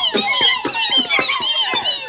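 Human voices imitating the walkers' cannon fire: a rapid, overlapping string of short squealing shots, about five a second, each falling in pitch.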